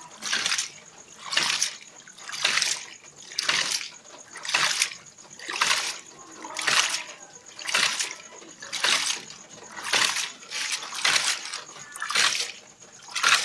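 Hydraulic ram pump (type 1.4) cycling steadily, about once a second: each cycle a gush of water spills from the open waste valve and stops as the valve shuts. The valve gap is set to about 1 cm, a small setting that gives a lighter water hammer.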